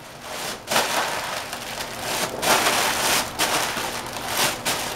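Foil party balloon crinkling and rustling as it is squeezed and handled at the mouth, in a string of noisy bursts about a second long each.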